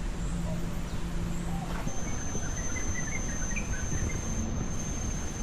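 Outdoor city-park ambience: a steady low traffic rumble, with a quick run of short bird chirps in the middle. A thin, steady high tone comes in about two seconds in and holds.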